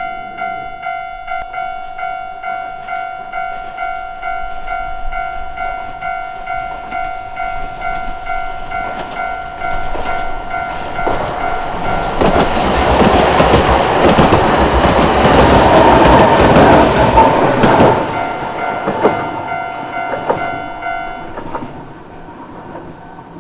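Japanese level-crossing bell ringing in a steady repeating ding while a Sangi Railway Hokusei Line narrow-gauge electric train with nose-suspended (tsurikake) traction motors passes over the crossing. The train builds up past the middle, is loudest for several seconds, then fades, and the bell stops near the end.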